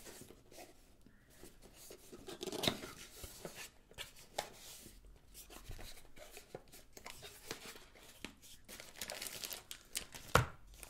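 Phone retail box and its packaging being handled and opened: irregular scrapes, taps and rustles of cardboard and plastic, with a sharp knock near the end.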